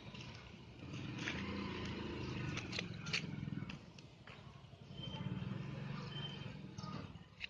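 A low, rumbling growl in two stretches, the first about three seconds long and the second about two, with faint clicks over it.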